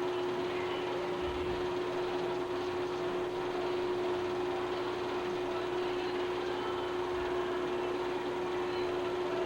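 Steady machine-like hum with hiss: a constant tone that does not change, over even background noise, with no other sounds.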